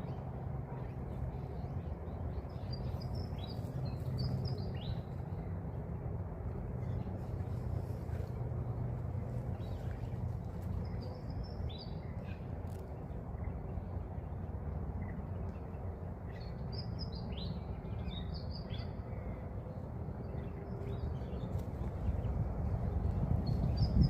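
Cockatiel chirping in short, quick high calls that come in small clusters with gaps between, over a steady low rumble.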